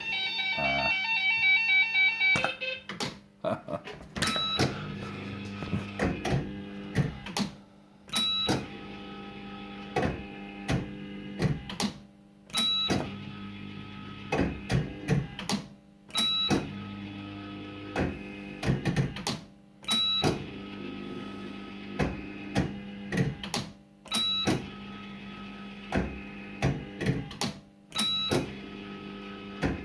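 Firecracker fruit machine's electronic sound effects: a burst of beeping tones at the start, then a short electronic jingle with clicks that repeats about every four seconds.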